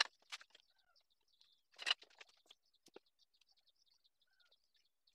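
Knocks and a short scrape of wooden strips and a metal ruler handled on a workbench during a glue-up, loudest just under two seconds in. Small birds chirp faintly throughout.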